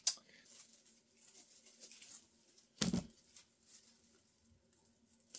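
Faint rustling of plastic cling film being handled, with a small click at the start and a single sharp knock about three seconds in.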